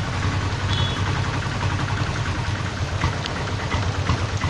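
A motor vehicle's engine idling close by, a steady low throb, over the steady hiss of heavy rain.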